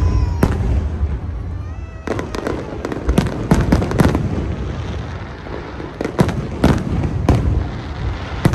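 Fireworks show: aerial shells bursting in a rapid, irregular series of sharp bangs over a steady low rumble. The bangs come thickest from about two seconds in.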